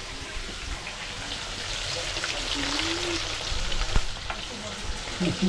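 Food frying in hot oil, a steady crackling sizzle, with a single sharp knock about four seconds in.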